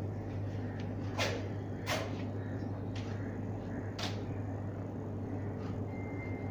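Room tone of a hall: a steady low hum with four short, faint knocks or shuffles spread across the first four seconds, while a standing crowd keeps silent.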